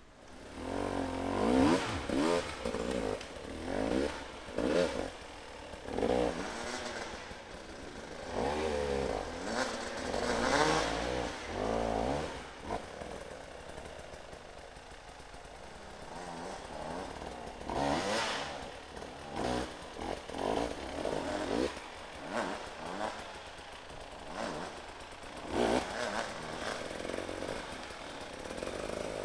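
Two-stroke dirt bike engine revved in short, uneven bursts as it climbs slowly over rocks, the pitch rising and falling with each blip of the throttle and dropping back lower between bursts. It comes in suddenly just after the start.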